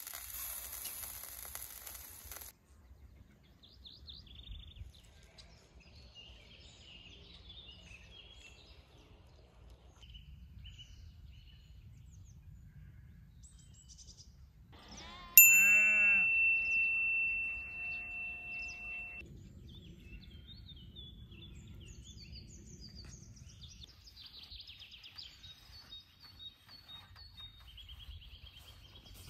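Faint birdsong, many short chirps, with a high hiss during the first couple of seconds. About halfway there is a sudden loud ringing tone that wavers at first, then holds steady for about four seconds and cuts off.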